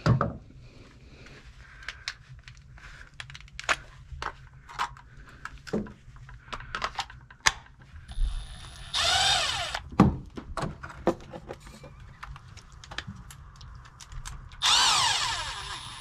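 Cordless drill run in two spells of about a second each, around the middle and near the end, backing out the hose clamp on the rubber coupling of a sump pump's discharge pipe. Scattered clicks and knocks of tools and hardware being handled come in between.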